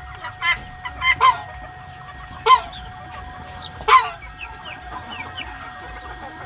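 Chickens clucking and calling: a few short, sharp calls, the loudest about two and a half and four seconds in, followed by several faint chirps.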